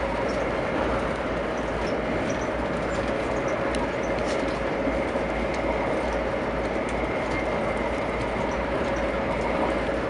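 Interior running noise of a VIA Rail LRC passenger coach at speed. A steady rumble of wheels on track carries a constant hum, with a few faint, irregular ticks.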